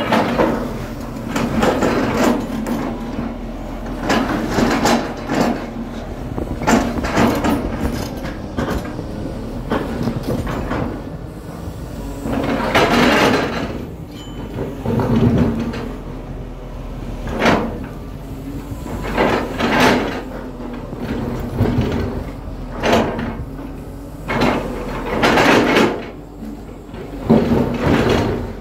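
JCB tracked excavator digging: its diesel engine runs steadily under load while the bucket scrapes and knocks against rock and soil again and again, at irregular intervals.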